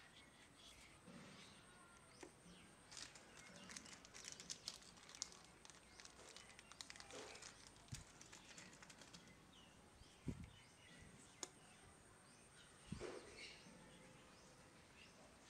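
Faint clicks and rustles of small plastic servo-bracket parts and tiny screws being handled, with a few brief sharper taps scattered through the second half.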